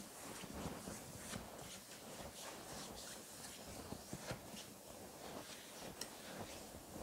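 Oiled hand sliding and rubbing over bare skin during a massage, faint soft swishing strokes, with a couple of small clicks near the middle and end.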